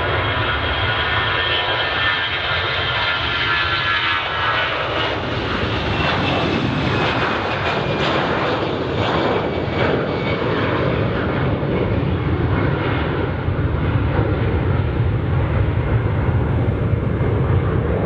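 Airbus A320-214's two CFM56-5B turbofans at takeoff thrust during the takeoff roll, lift-off and climb-out: a high engine whine that slides down a little in pitch as the jet passes, giving way to a deep rumble that grows stronger in the second half.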